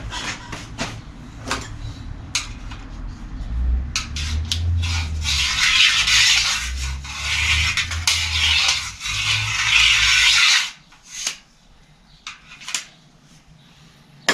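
Steady rubbing and scraping of rubber against a bicycle wheel's rim as the flat rear tyre and tube are worked off it. The noise stops suddenly about ten and a half seconds in, followed by a couple of light clicks.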